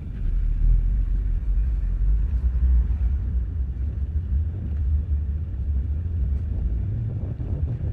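Wind buffeting a headset microphone on a moving e-bike: a steady, loud low rumble.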